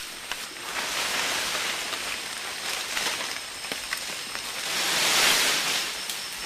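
Rainforest ambience: a steady hiss that swells about five seconds in, with scattered light clicks.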